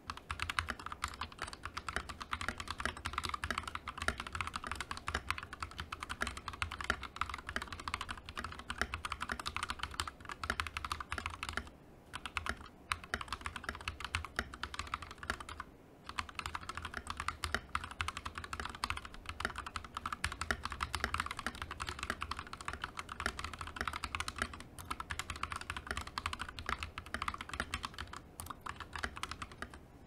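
Continuous fast typing on a Royal Kludge RK61 60% mechanical keyboard with its stock switches and Akko Neon keycaps: a dense run of key clacks, broken by brief pauses about twelve and sixteen seconds in.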